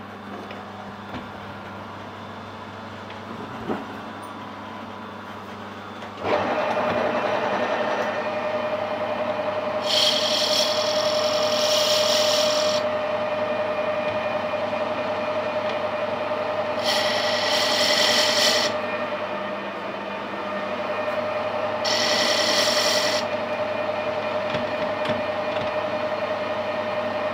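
Lathe starting about six seconds in and running with a steady whine, while a tool takes short chamfering cuts on the spinning gear blank, heard as three hissing bursts of a second or two each, with a fourth starting near the end.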